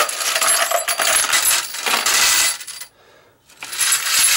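Brass cartridge cases clinking and rattling against one another and a plastic tray as they are tipped out of a plastic strainer basket, with a brief pause about three seconds in.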